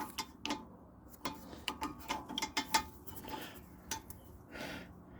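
Irregular metallic clicks and clinks of a wrench working on a brake caliper bolt.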